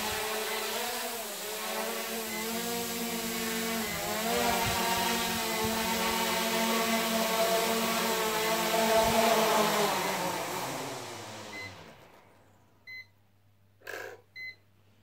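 Small quadcopter drone's propellers buzzing in flight, the pitch rising and falling as it manoeuvres; about eleven seconds in the motors wind down and the buzz falls in pitch and fades as it lands. Near the end, a few short electronic beeps.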